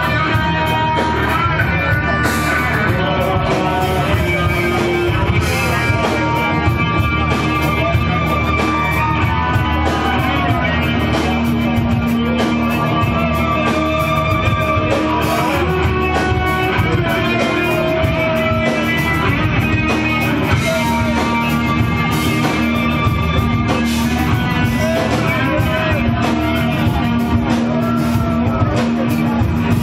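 Rock band playing live in a club hall, heard from among the audience: electric guitars and drum kit going full and loud without a break.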